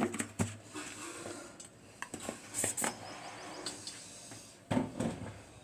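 Kitchen containers being handled: a plastic tub and steel bowls moved and set down on the counter, making scattered short knocks and clicks, with one louder knock near the end.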